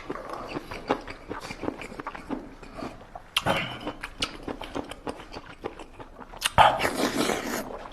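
Close-miked chewing and biting of big sea snail meat: a run of short wet clicks and smacks, with two louder, longer noisy bursts about three and a half seconds in and near the end.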